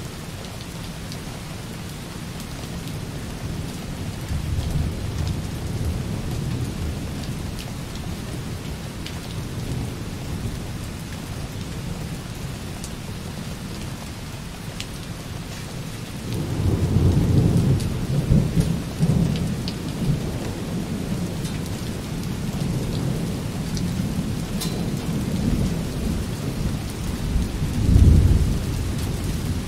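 Light rain falling steadily on a window, with distant rolling thunder underneath: a faint rumble about four seconds in, a louder long roll starting just past halfway, and a stronger peak near the end.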